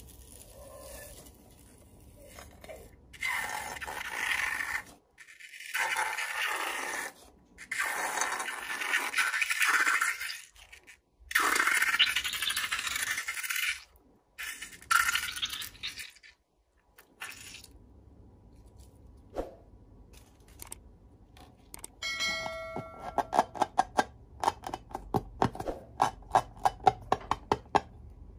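Pink slime being squeezed out of a cut rubber balloon onto a plate, squelching and sputtering in repeated bursts of a second or two with abrupt breaks between them. Near the end come a short squeak and a quick run of sharp clicks and pops.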